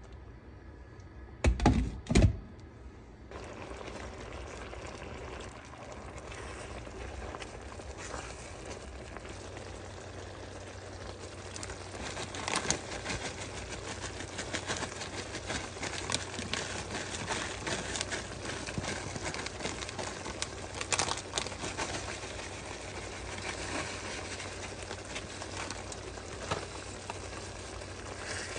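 Creamy alfredo sauce with chicken simmering in a skillet: a steady sizzle with scattered pops and clicks as it bubbles and a utensil stirs through it. Two loud knocks come about two seconds in.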